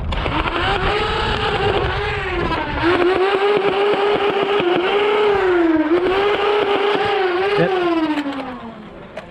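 LiPo-modded Nerf Rival Nemesis firing on full power: the flywheel motors whine up to speed, hold a steady pitch that sags briefly and recovers a few times under the rapid clatter of balls being fired, then spin down with a falling whine near the end.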